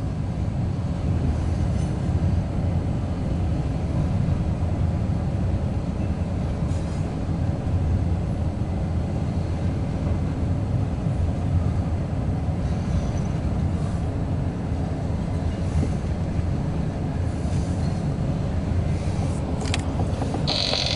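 Steady low rumble of a Union Pacific double-stack intermodal train rolling across an elevated steel bridge, with a few faint clicks.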